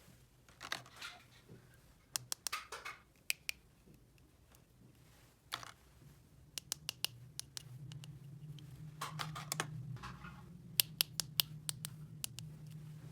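Small plastic toy pieces being handled: scattered sharp clicks and short scratchy rustles, with a clustered run of clicks near the end. A low steady hum comes in about halfway through.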